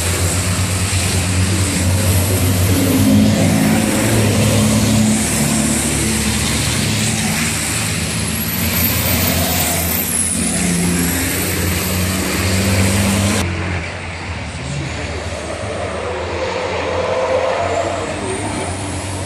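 Racing trucks' turbo-diesel engines running hard as the trucks pass through a corner one after another. A thin high whistle rises and falls twice.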